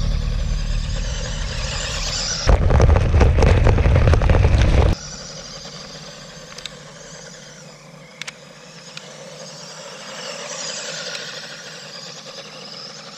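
Loud low rumble and buffeting on the microphone for about five seconds, cutting off sharply. After that, a fainter outdoor hiss, with the small electric motor of a 1/12-scale RC off-road truck whining up and down on gravel near the end.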